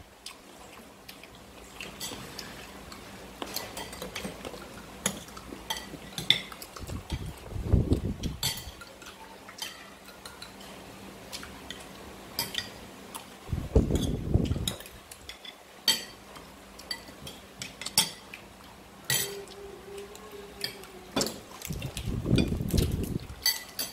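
Tableware clinking during a meal: metal spoons tapping and scraping on ceramic bowls and plates, in many short clicks. A few dull low thumps come in about a third of the way in, past the middle and near the end.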